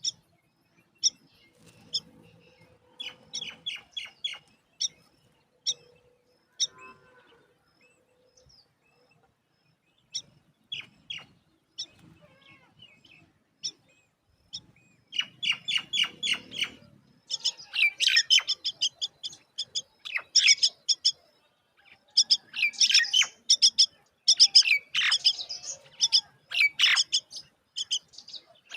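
Myna chicks chirping at the nest: short, high chirps, scattered at first, then coming in quick runs about halfway in.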